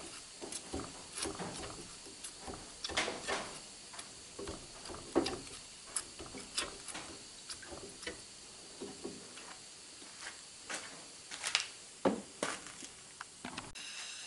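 Cleaning rod with a bore mop pushed in and out of the chambers of a black powder revolver cylinder in a water trough: irregular light clicks and knocks of the rod against the cylinder and tray.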